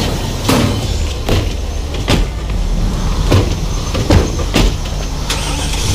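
Low steady vehicle rumble with about seven sharp knocks or thumps at uneven intervals.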